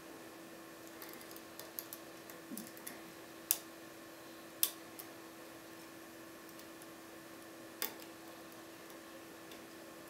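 Irregular small metallic clicks and ticks of a lock pick working the pins of a TESA TE5 paracentric five-pin euro cylinder: a scatter of faint ticks, then three sharper clicks spread over the following seconds.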